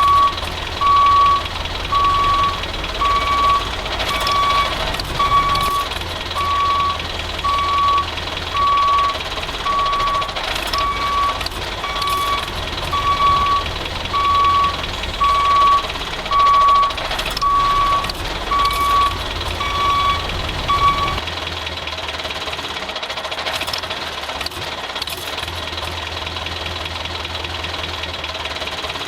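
A truck's reversing alarm beeping about once a second over a running engine. The beeping stops about 21 seconds in, and the engine keeps running steadily.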